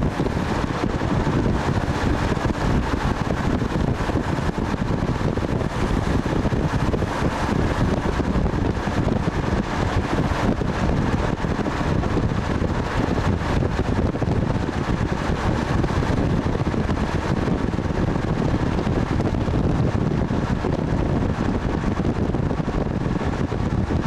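Steady rush of wind and road noise from a moving van, with wind buffeting the camcorder's microphone.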